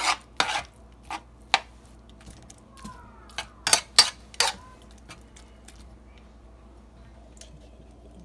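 A utensil scraping and knocking against a metal skillet as seasoned ground beef is stirred and broken up. There are bursts of strokes near the start and again around four seconds in, then only faint ticks.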